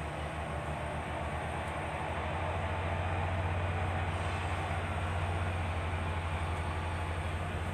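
A steady low mechanical rumble with a hum under it, growing louder about two seconds in and then holding.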